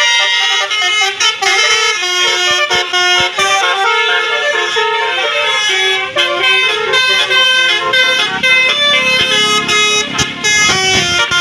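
Bus telolet horn, a Basuri multi-trumpet musical air horn, playing a fast melody of short, changing tooted notes. A low rumble joins under it about eight seconds in.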